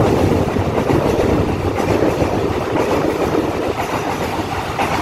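Taiwan Railways EMU900 ten-car electric multiple unit running past along the platform: a steady, loud rumble of wheels on rails.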